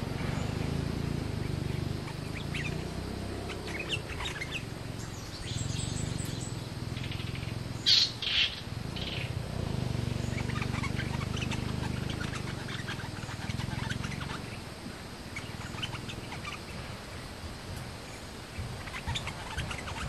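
Bulbuls calling around a caged decoy: scattered short chirps, with a loud pair of calls about eight seconds in. A low droning hum comes and goes underneath.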